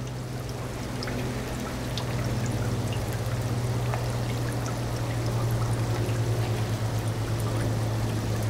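Water churning and bubbling hard at the surface of an aerated fry tank, a steady splashing with small pops, over a steady low hum.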